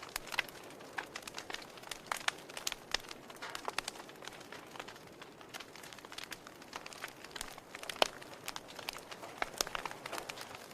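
Wood fire crackling in a fireplace: irregular sharp pops and snaps over a soft hiss, with one louder pop about eight seconds in.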